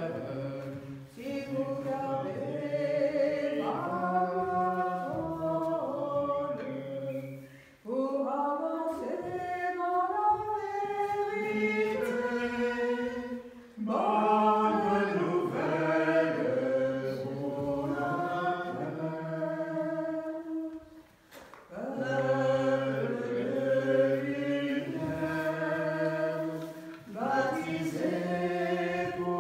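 A group of voices singing a slow hymn, unaccompanied, in long held phrases with brief breaks between them.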